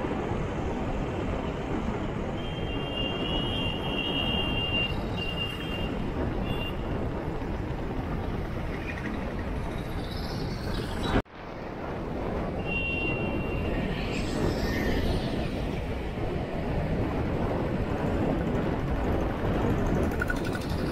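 Steady wind rush and road rumble on a helmet-mounted action camera's microphone while riding a motorbike through traffic. The sound drops out for an instant about halfway through, where one clip cuts to the next.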